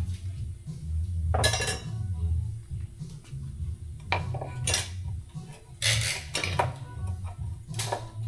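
Steel tools clinking and striking sharply against metal, about six ringing hits spread irregularly, while a seized headset bearing is worked out of a bike frame.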